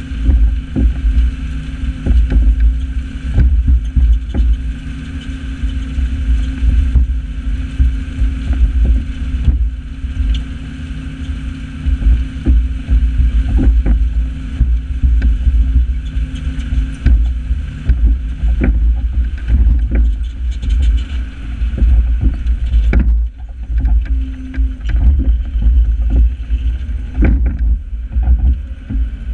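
New Holland 8160 tractor's diesel engine running steadily under load while pulling a Kverneland four-furrow reversible plough, over a heavy, buffeting rumble, with frequent knocks and rattles. About three quarters of the way through, the higher part of the engine sound fades.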